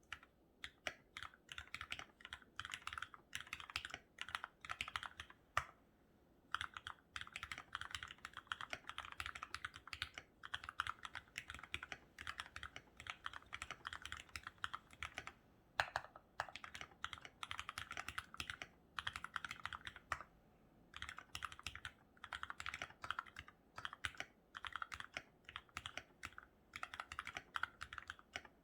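Typing on a COX CK87BT mechanical keyboard with lubed, retooled Cherry MX Black linear switches and Cherry-profile keycaps: runs of rapid keystrokes in bursts of a few seconds, separated by short pauses, with a few louder single strokes.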